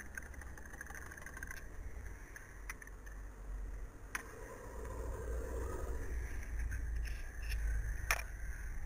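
Low rumble of road traffic passing through a village street, swelling toward the end, with two sharp clicks about four and eight seconds in.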